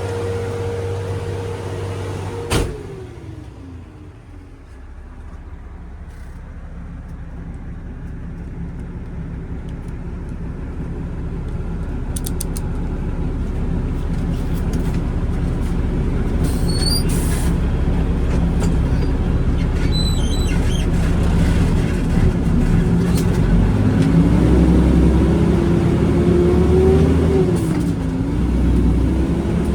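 Concrete mixer truck's diesel engine held at a steady raised speed, dropping away after a sharp click about two and a half seconds in, then growing gradually louder and rising in pitch in the last several seconds as it revs up.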